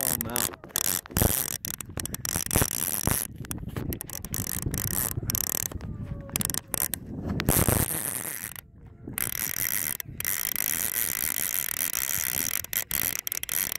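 A fishing reel's clicker ratcheting in a fast, continuous run of clicks as line moves through the reel with a shark hooked on it. It breaks off briefly about nine seconds in, with knocks and rubbing from the phone handled against the rod.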